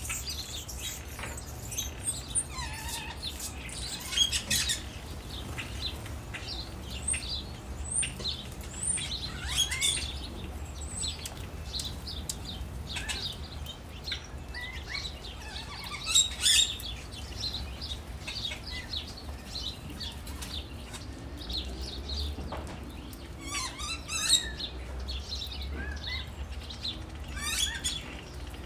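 Many small birds chirping at once, short high calls overlapping throughout, over a steady low rumble.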